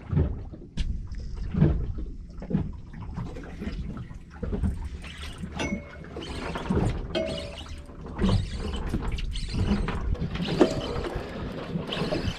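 Sea water lapping and slapping against a small boat's hull, with irregular knocks and surges.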